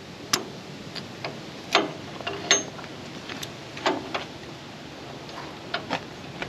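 Scattered metal clinks and light knocks, about a dozen at irregular intervals, from tools and metal parts being handled while working on a poultry cruster's pickup chain and screen.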